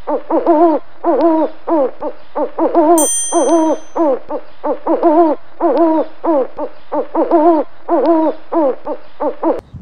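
Owl hooting in quick, evenly repeating groups of short, downward-bending hoots that go on over and over. A single bright electronic chime sounds about three seconds in, and the hooting cuts off abruptly near the end.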